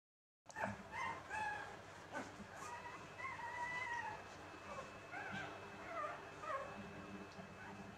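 Baby macaque giving a series of short, high calls that bend up and down in pitch.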